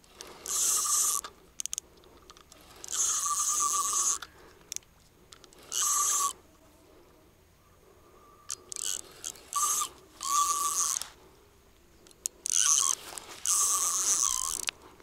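Spinning reel buzzing in about seven short bursts, each half a second to a second long, while a hooked fish is played against a drag set tight.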